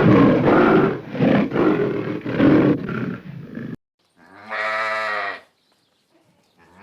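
A big cat's rough, growling roar cuts off abruptly a little under four seconds in; after a short gap, a sheep bleats once, and a second bleat begins near the end.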